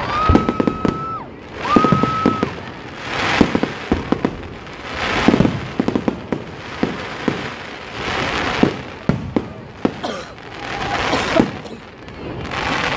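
Fireworks display: repeated sharp bangs and crackling bursts over swelling waves of hissing noise every couple of seconds. A steady high whistle-like tone sounds twice in the first two seconds or so.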